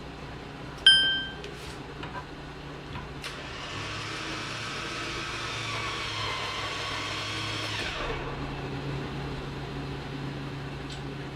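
A short, bright metallic ding about a second in, then an electric winch motor runs for about four and a half seconds, whirring steadily, and stops abruptly.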